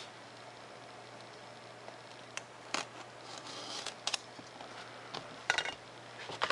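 Craft knife blade cutting 3 mm Depron foam sheet along a plastic ruler: scattered short scratches and clicks, with a brief hiss a little past the middle and the sharpest scrape near the end.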